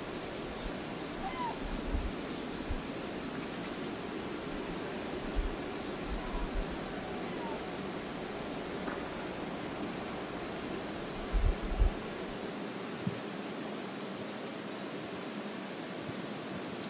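Steady rush of flowing river water, with short high-pitched ticks coming irregularly throughout and a few low rumbles in the first two-thirds.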